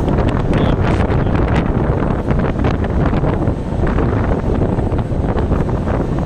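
Strong wind buffeting a phone microphone on the open deck of a moving ship, a loud steady low rumble with brief crackles from the gusts.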